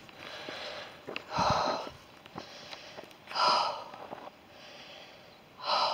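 A man breathing hard while hiking, weary from the walk in the heat: three loud, noisy breaths about two seconds apart.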